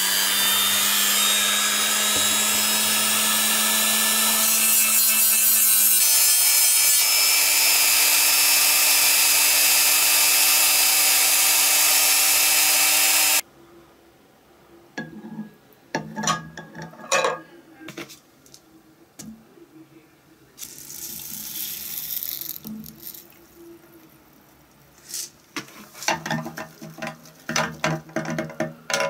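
Handheld rotary tool with a small cutting disc running at high speed, its whine stepping up in pitch about six seconds in, then stopping abruptly about halfway through. After it, scattered clinks and knocks of a utensil stirring liquid in a glass jar, with a brief rushing hiss between them.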